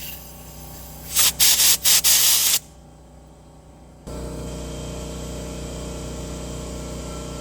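Several short, loud hissing spray bursts at the cleaned carburetor parts of a Subaru EA190V engine, about a second in, over a span of about a second and a half. About four seconds in, a steady low hum starts and holds.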